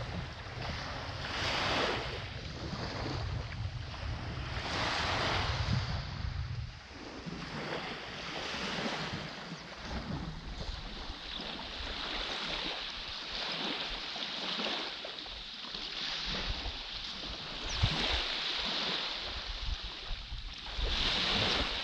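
Small waves washing onto a sandy beach, the surf swelling and fading every few seconds. Wind buffets the microphone with a low rumble for about the first seven seconds, then eases.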